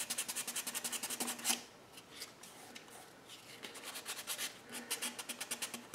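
Abrasive pad rubbed quickly back and forth by hand on a plastic tail light lens, sanding away a light surface mark. The strokes come rapid and even, ease off for a moment after about a second and a half, then pick up again.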